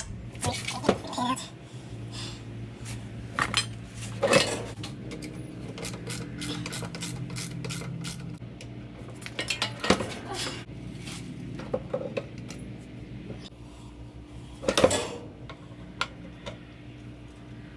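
Steel wrench clinking and clicking against the bolts and backing plate of a Model A front brake wheel cylinder as the bolts are loosened, with irregular sharp metal clicks and a couple of louder knocks, about four and fifteen seconds in. A steady low hum runs underneath.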